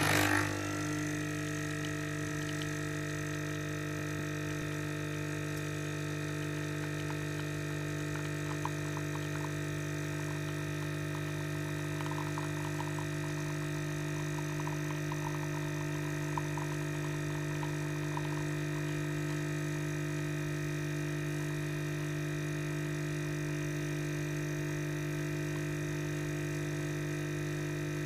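Nespresso capsule machine's vibratory pump running with a steady electrical hum.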